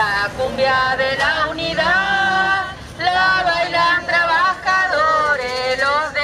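Protest marchers singing a chant together in phrases of about a second, with one high voice loudest and closest.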